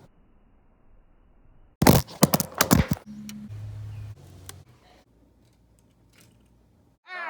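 A quick run of loud sharp knocks or cracks lasting about a second, followed by a low steady hum for about a second and a half and a few faint clicks.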